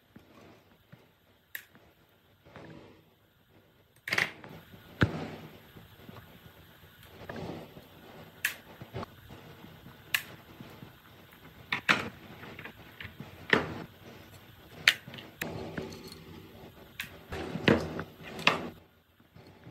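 Hand tools and the metal motor housing of an old metal cutting machine being handled on a workbench: a string of sharp clicks and knocks, starting about four seconds in, with short rubbing sounds in between.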